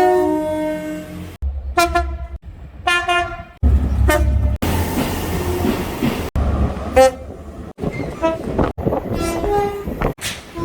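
A rapid string of short train horn blasts from different trains, cut together one after another: about half a dozen brief toots, some sounding two notes in turn, each clip cut off abruptly. A low rumble of train engines and rail noise runs under several of the clips.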